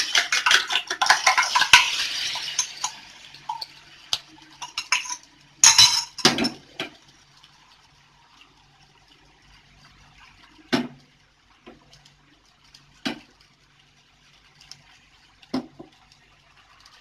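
Beaten egg poured onto a hot, oiled iron tawa sizzles, with dense crackle and hiss that fades over the first few seconds. Then come metal clinks from the steel tumbler as the last egg is scraped out, and three single sharp knocks spaced a couple of seconds apart.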